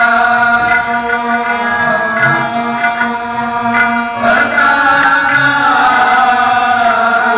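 Sikh kirtan: voices singing a hymn over a steady harmonium drone, with tabla strokes beneath.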